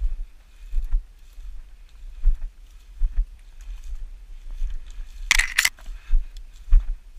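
Footsteps of a person walking through dry grass and scrub, heard as dull irregular thumps on a body-worn microphone, with rustling of stalks and twigs. About five seconds in, a brief, louder swish of brush against the microphone.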